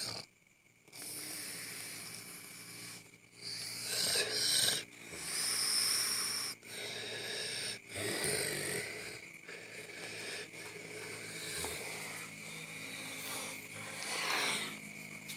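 A sleeping man snoring in an odd way: a run of long, rasping breaths of uneven length, some carrying a high whistling note.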